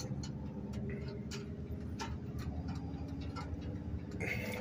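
Scattered sharp metal clicks and taps at the pickup's trailer hitch as a car-hauler trailer is coupled, over the steady low hum of an idling truck engine.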